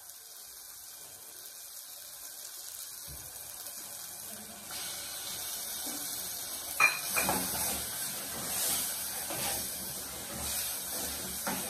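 Sliced onion and green pepper sizzling as they go into a metal pot of hot tomato sauce on a gas stove, the hiss starting about five seconds in. A sharp clink of metal on the pot comes about seven seconds in, followed by stirring, with the sizzle swelling and fading.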